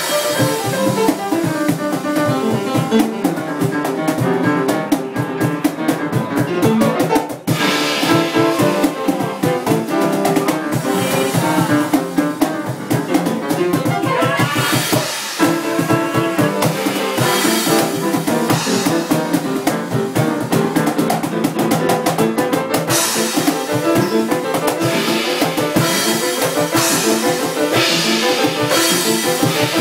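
Live jazz: a piano solo on an upright piano, accompanied by a drum kit.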